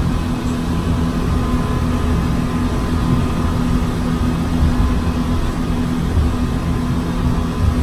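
Fast passenger boat's engines running at full speed, heard inside the cabin: a steady low hum under a constant rush of noise.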